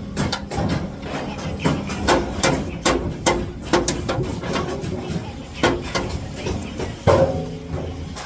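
Hammer blows and metal clanks on aluminium formwork: irregular sharp knocks, one to three a second, some leaving a short metallic ring. The loudest comes near the end.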